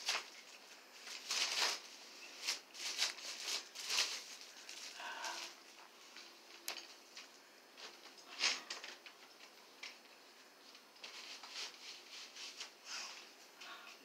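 A plastic aquarium screen lid and its wrapping being handled and taken apart: irregular rustling and crinkling with light plastic clatters and a few sharp clicks.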